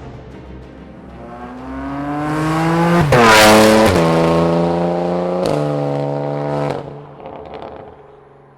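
Racing motorcycle at full throttle approaching and passing close by. Its engine note climbs and gets louder to a peak about three seconds in, then drops sharply in pitch several times as it changes up through the gears and fades away.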